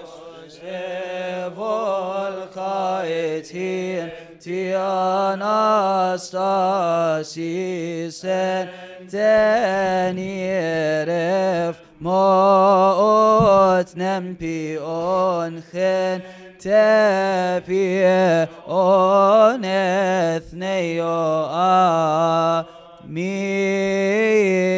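Male voice chanting a slow, melismatic Coptic Orthodox liturgical chant: long held notes with ornamented turns in pitch, in phrases broken by short breaths.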